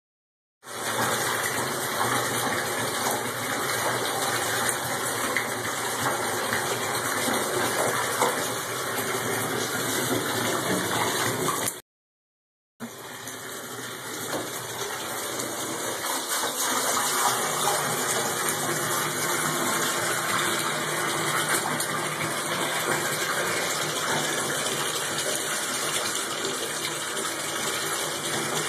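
Water running steadily from a tap into a bathtub. The sound cuts out completely for about a second near the middle.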